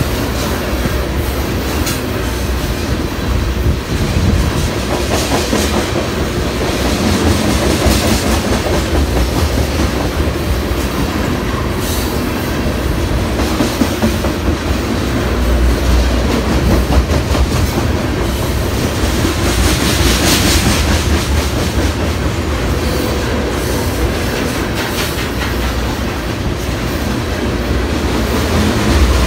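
Tank cars of a freight train rolling past, a steady rumble with the wheels clacking over the rail joints.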